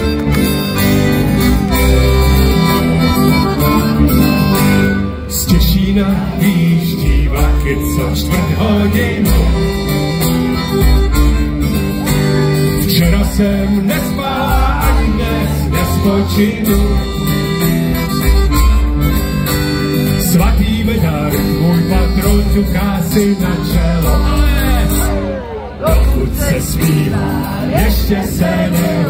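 Live band music recorded from the audience: a steel-string acoustic guitar with drums, playing continuously with a steady bass pulse, briefly dipping twice.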